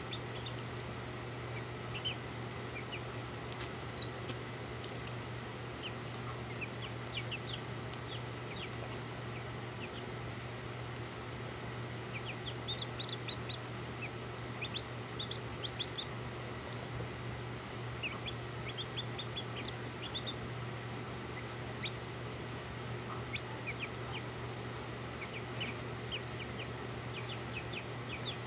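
Two bantam chicks peeping: short, high peeps coming in quick runs, busiest about halfway through and near the end, over a steady low hum.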